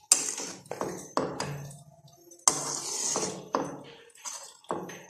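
Metal cooking utensil knocking and scraping against a pot of boiling noodles as they are stirred: irregular sharp knocks, roughly one a second, the strongest followed by a short scraping rasp.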